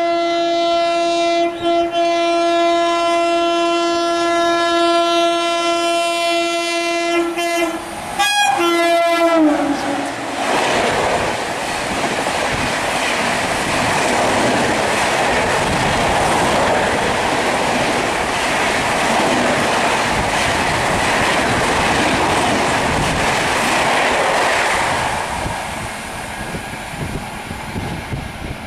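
Indian Railways electric locomotive's horn held in one long steady blast for about nine seconds, its pitch dropping as the locomotive passes. Then the express train's coaches rush past at speed with wheel clatter on the rails, fading near the end.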